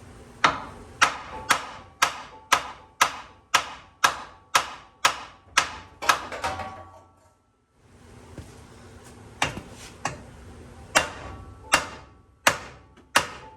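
Hammer blows on the front suspension of an 1988 Ford Bronco II, knocking a ball joint out. There are about a dozen steady strikes, two a second, each with a short metallic ring, then after a brief pause five slower, more irregular blows.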